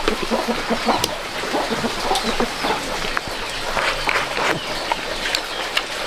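Chickens clucking, many short calls scattered through, with a few sharp clicks among them.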